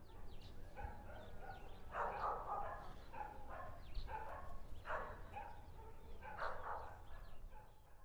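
A dog barking repeatedly, a short bark every second or two, with small birds chirping thinly over a low steady rumble.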